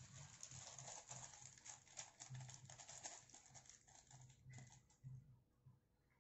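Faint rustling and light tapping of coloured paper being handled and pressed down onto a sheet on a desk, dying away about four and a half seconds in.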